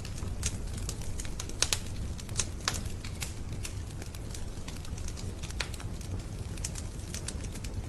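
Wood fire crackling in the open firebox of a masonry stove: irregular sharp pops and snaps, a few louder ones in the first few seconds, over a steady low rumble.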